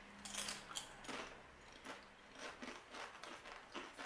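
Cheese-flavoured Doritos tortilla chips crunched as they are bitten and chewed, a run of irregular crisp crunches.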